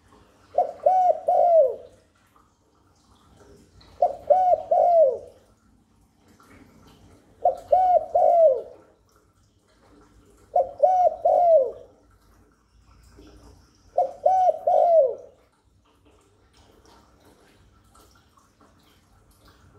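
Spotted dove cooing: five phrases of about three low, rounded notes each, repeated every three to four seconds, then stopping after about fifteen seconds.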